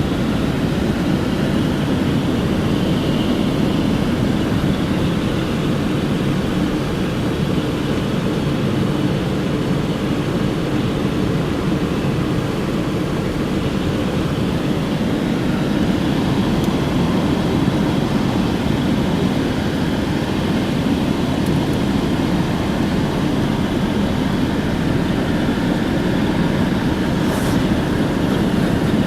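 A car driving along, giving a steady, even low rumble of road and engine noise that does not change.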